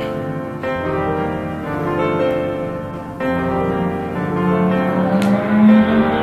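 Background music: a calm piano-led instrumental with sustained chords that change every second or two.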